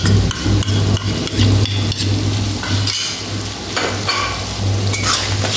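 Beaten yogurt being scraped off a bowl with a metal spatula into a wok of frying onion and spice masala, with sizzling and irregular spatula scrapes and clicks against the pan. A steady low hum runs underneath.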